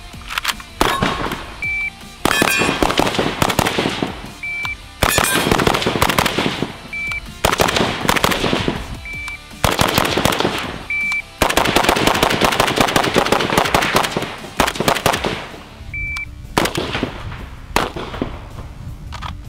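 Arsenal SLR-104 semi-automatic AK rifle in 5.45x39 firing fast strings of shots, several strings with short pauses between them, over background music.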